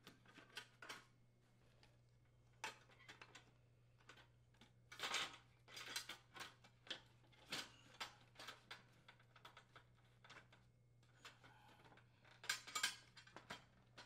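Faint clicks and light clatter of the ice machine door's bottom trim and metal hinge rails being handled and fitted into place by hand, with louder bursts of clatter about five seconds in and again near the end.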